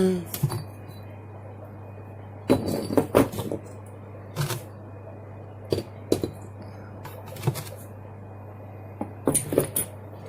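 Scattered knocks and clatters of rocks and other vivarium decor being lifted out and set down by hand, over a steady low hum.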